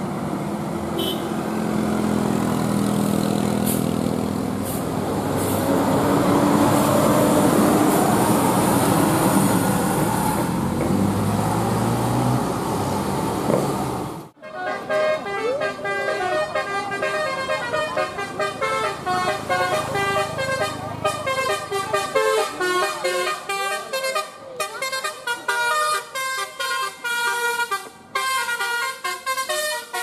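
A large bus engine running as the bus passes on the road for about the first half. After a sudden cut, an Indonesian bus telolet horn, a multi-tone air horn, plays a quick melody of stepped notes with short breaks between them.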